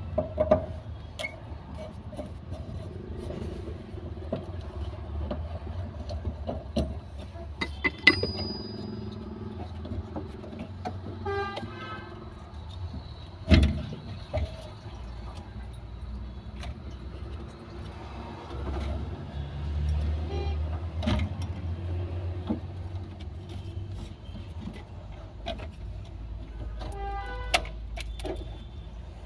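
Low rumble of passing street traffic, with a car horn honking twice. Over it, scattered clicks and knocks of metal tools and parts as a fuel pump module is pried loose and lifted out of the fuel tank; one sharp knock about halfway through is the loudest sound.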